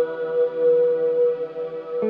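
Background music with long, held ringing notes that slowly fade, and a new chord coming in at the very end.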